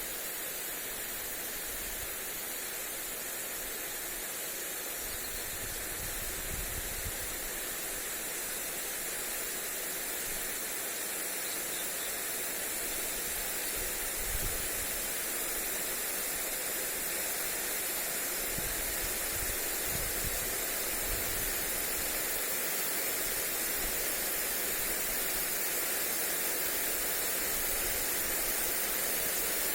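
Lawn sprinkler spraying water onto grass, a steady hiss, with occasional low rumbles of wind on the microphone.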